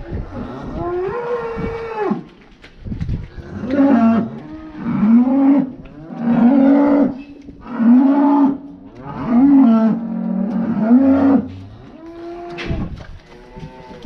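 Cattle mooing loudly and repeatedly while being moved through the yard: one higher call about a second in, then a steady run of six lower moos about a second and a half apart, then more calls near the end.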